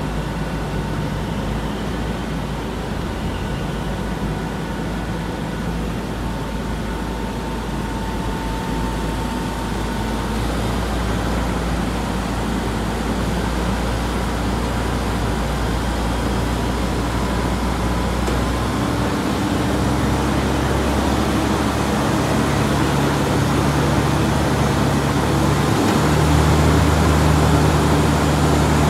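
Crane engine running steadily under load, its low hum stepping up in pitch about two-thirds of the way through and again near the end, growing gradually louder.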